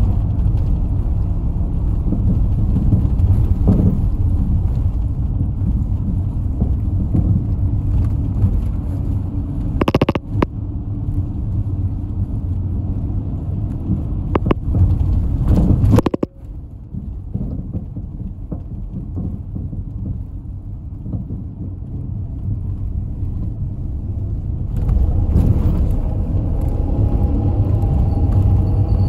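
Engine and road rumble heard from inside a moving community bus, with a few knocks and rattles. About halfway through the noise drops sharply and stays lower, then rises again near the end with a faint rising whine as the engine pulls.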